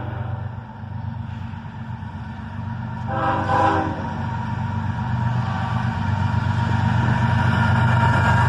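Approaching CSX GE ES44AH diesel locomotive rumbling, louder as it nears. About three seconds in, its horn gives a short blast as a salute.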